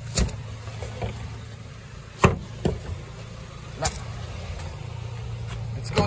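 A few sharp knocks and clicks, the loudest about two seconds in, over a steady low hum.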